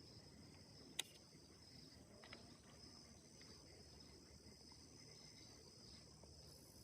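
Faint, steady high-pitched chorus of insects such as crickets, with one sharp click about a second in.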